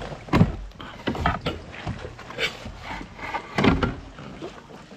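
Several separate knocks and thumps in a fishing kayak as a just-caught largemouth bass is handled to be measured.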